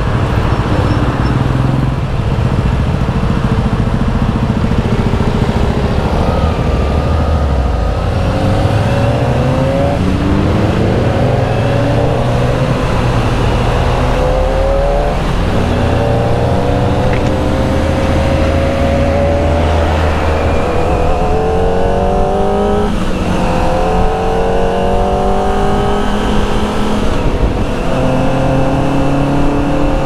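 Kawasaki ZX-25R's 250 cc inline-four on its standard exhaust. It runs low and steady at first, then from about eight seconds in it revs up through the gears again and again, each run climbing in pitch and breaking off at the shift.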